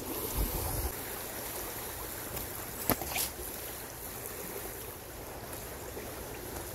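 Shallow river flowing steadily over its bed, a continuous rushing of water. A single sharp click about three seconds in.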